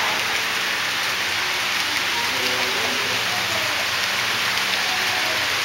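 Steady hiss of HO-scale model freight cars rolling over the track as the train passes close by.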